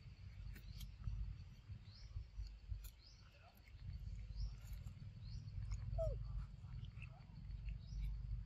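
Baby macaque eating mango, with faint wet chewing clicks, over a low rumble. Short high chirps repeat about once a second, and a brief falling squeak comes about six seconds in.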